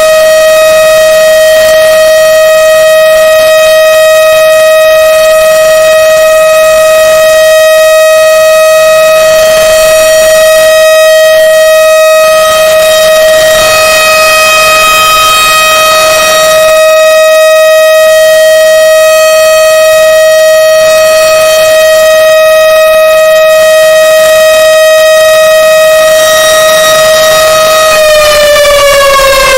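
Civil defense siren sounding a loud, steady tone, then beginning to wind down and fall in pitch about a second and a half before the end.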